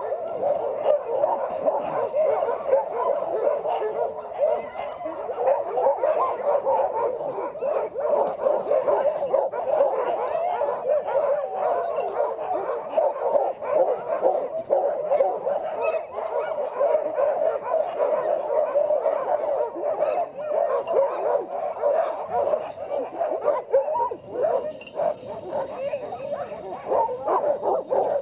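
A chorus of many sled dogs barking, yelping and yipping all at once in a dense, unbroken din, the excited clamour of a kennel while a team is hitched to a sled for a run.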